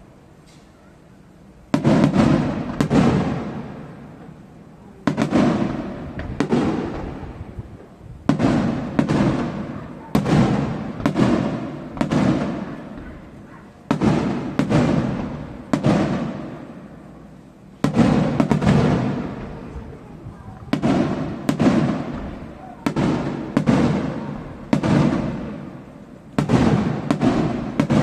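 Aerial firework shells bursting one after another, starting about two seconds in. Each is a sharp bang, coming about once a second, that trails off in a rumbling echo.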